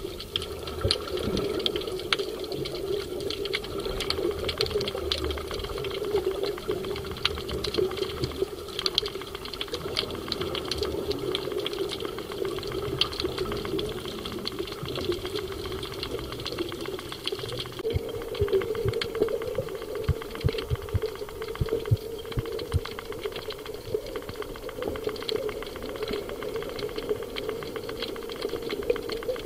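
Underwater ambience over a rocky reef: a dense, fast crackle of clicks over a steady hum, with low bubbling from a diver breathing out.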